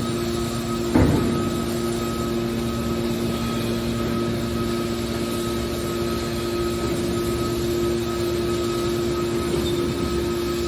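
Metal-baling machinery running with a steady hum, with a single clunk about a second in.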